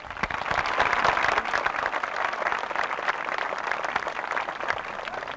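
Crowd applauding, a dense patter of many hands clapping that starts abruptly, is strongest about a second in, then slowly thins out.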